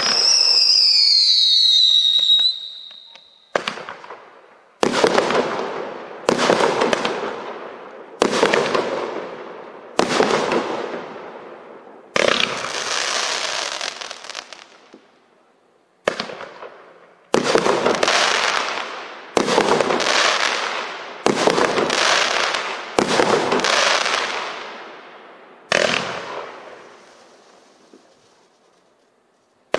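A 500-gram firework cake firing. It opens with a volley whose whistle glides downward for about three seconds. Then comes a string of about a dozen single shots a second or two apart, each a sharp report that trails off.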